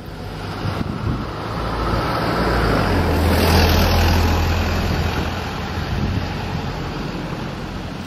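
A road vehicle passing: a low rumble over a broad rush that swells to its loudest about halfway through, then slowly fades.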